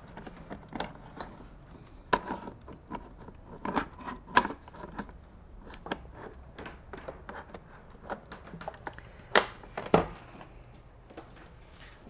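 Irregular clicks and knocks of hard plastic as the mopping water-tank module is worked into a Proscenic M7 Pro robot vacuum that won't go in easily, with a few sharper knocks partway through and near the end.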